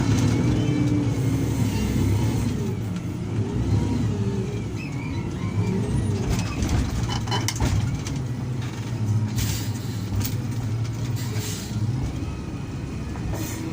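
Heavy diesel earthmoving machinery at work, its engine pitch rising and falling under load, with a few sharp knocks or clanks around the middle and toward the end.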